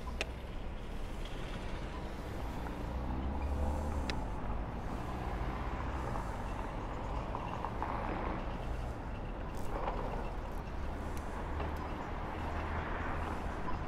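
Urban traffic heard from a moving bicycle: a steady low wind-and-road rumble with vehicles passing, and a few sharp clicks.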